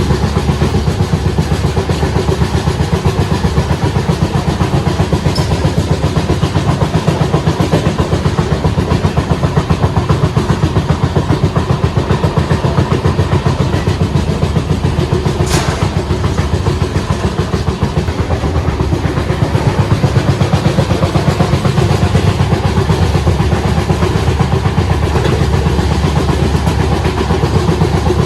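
Passenger train running steadily, a continuous low rumble with a fast, even pulse, and one brief sharp click about halfway through.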